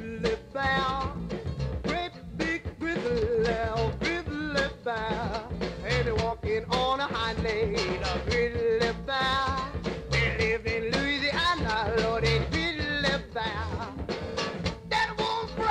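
Live band music with a steady beat and a wavering lead melody.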